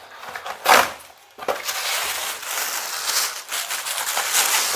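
Cardboard box and its packaging being handled and opened: a loud rustling burst a little under a second in, a short pause, then continuous rustling and crinkling.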